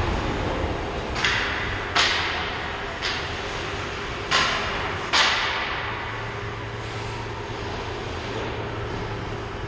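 Ice hockey rink sounds: five sharp knocks and scrapes in the first five seconds, each with an echoing tail in the arena, over a steady low hum.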